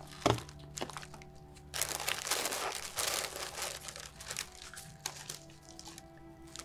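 A clear plastic bag crinkling as a hand rummages in it, with a sharp click about a third of a second in, over soft music with long held notes.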